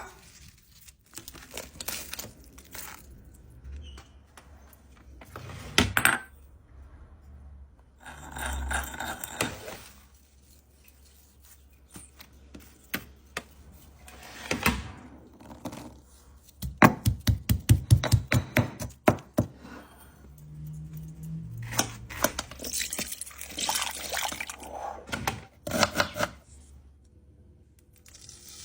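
Kitchen preparation sounds: scattered clinks, knocks and clatters of utensils and dishes, with a fast run of about ten sharp knocks in a row a little past the middle.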